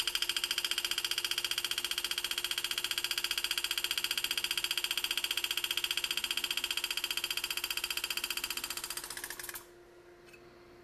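Enset pneumatic engraving handpiece hammering a graver through metal in a fast, even rattle of taps while cutting a flare cut; the tapping stops abruptly about nine and a half seconds in, leaving a faint steady hum.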